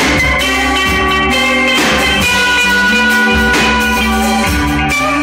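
Live rock band playing through a PA: distorted electric guitars holding sustained notes over a drum kit, with a cymbal crash about every two seconds.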